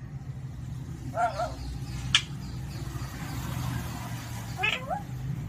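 Pet parrot giving two short pitched calls, about a second in and near the end, with a single sharp click between them, over a steady low rumble.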